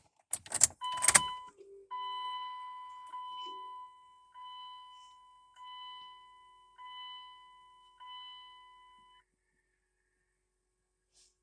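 A few sharp clicks and knocks, then a pickup's dashboard warning chime sounding as the key is switched on: six chimes about a second apart, each fading away, stopping about nine seconds in. No cranking or engine sound follows.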